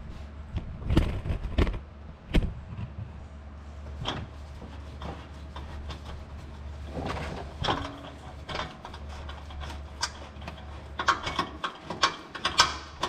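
Hand tool working the small screws of a pickup truck's plastic underbody cover: scattered clicks and knocks, then a quick run of sharp clicks near the end, over a steady low hum.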